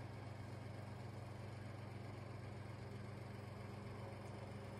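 Faint, steady low hum of background room noise, with no other events.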